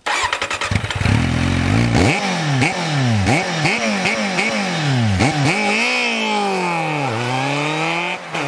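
Kawasaki Z750 inline-four through its original silencer: idling for about two seconds, then revved in about seven quick blips. Near the end it revs up more slowly as the bike pulls away.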